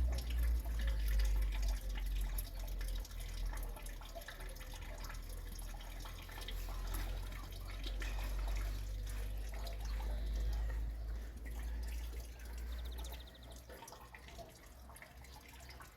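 Rain dripping and pattering in scattered drops, over a steady low rumble that fades a few seconds before the end.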